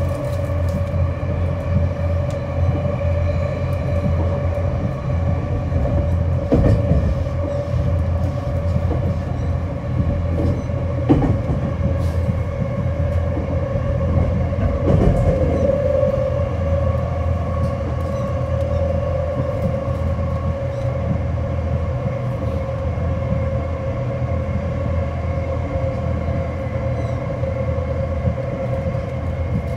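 Inside a JR West 225 series 5100 subseries electric multiple unit motor car with Toshiba IGBT traction drive, running on the line: a continuous low rumble of wheels on rail with a steady tone and a few short clicks.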